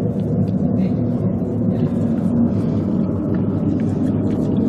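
Steady low background rumble with faint scattered ticks over it.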